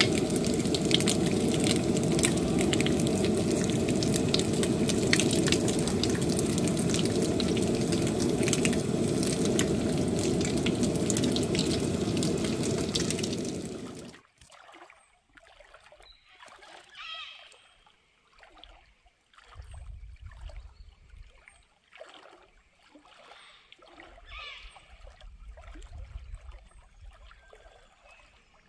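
Bacon sizzling and crackling loudly on a flat camp barbecue hotplate. About halfway through it cuts off abruptly, leaving much quieter outdoor sound with low rumbling and a couple of faint higher calls.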